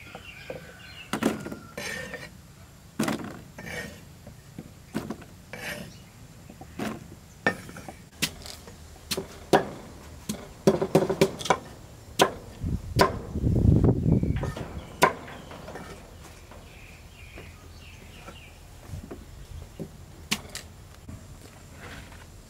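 A blade chopping on a wooden board: irregular sharp knocks, coming thickest in the middle, with a low rumble for about two seconds midway.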